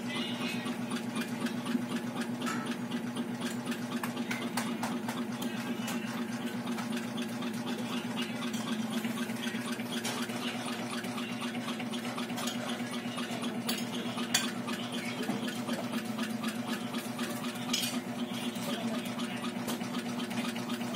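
Steady hum of a small electric motor, even throughout, with a few faint ticks.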